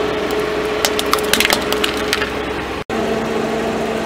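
Hard plastic toy cracking and snapping under a slowly rolling car tyre: a run of sharp crackles lasting about a second and a half, over the steady hum of the car's engine.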